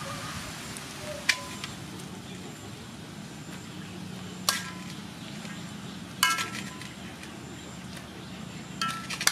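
Stir-fried beef noodles sizzling quietly in a wok, with four sharp metal clinks against the wok that ring briefly, spread a couple of seconds apart.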